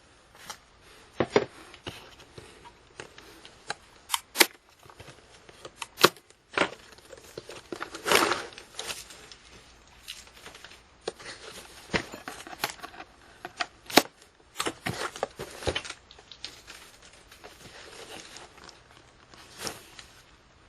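A kit box and its packaging being opened and handled by hand: irregular sharp clicks and knocks, with a longer rustle about eight seconds in.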